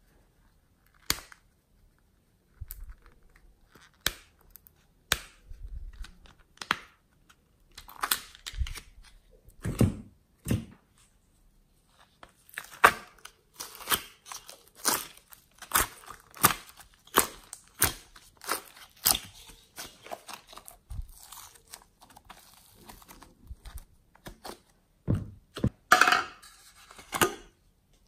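Hands handling small plastic slime containers and pulling soft clay from a plastic tray: scattered clicks and taps, with a busier stretch of tearing, crinkling sounds in the middle.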